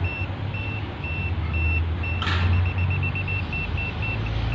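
MUSTOOL MT11 Pro multimeter in EMF mode beeping repeatedly, about three short high beeps a second, the sign that it is detecting an electromagnetic field. About two seconds in, after a click, the beeping quickens for about a second and then stops. A steady low hum runs underneath.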